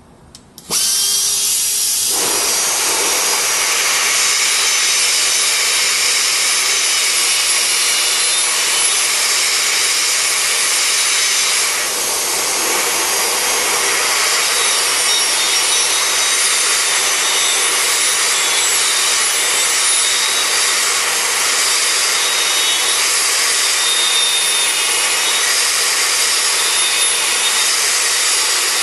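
Dynabrade 52204 gearless right-angle air die grinder starting up about a second in, then running steadily at high speed with a high-pitched whine and air hiss as its burr grinds into a metal block.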